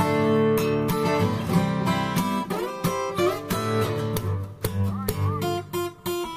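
Background music led by strummed acoustic guitar.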